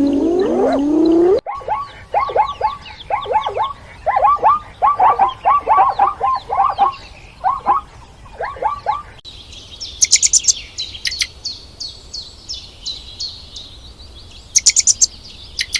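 Recorded bird calls in two edited clips: a run of quick downward-slurred notes, then after a cut about nine seconds in, a faster series of high, thin chirps. In the first second and a half, rising calls of a different animal end abruptly.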